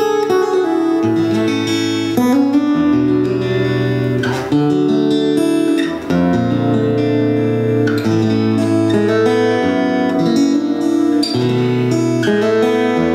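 Martin D-35 E steel-string dreadnought acoustic guitar played solo, picked notes and chords over held bass notes that change every second or two.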